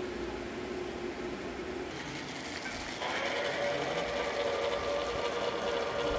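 Model New York Central Hudson steam locomotive running along the track, its small electric motor and gearing giving a steady mechanical whine. The whine grows louder and higher from about three seconds in, as the locomotive runs close by.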